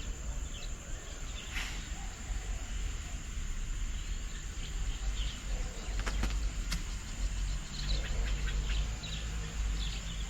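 Garden ambience: a steady high-pitched drone of insects, with scattered short bird chirps and a low background rumble. Two sharp clicks sound about six seconds in.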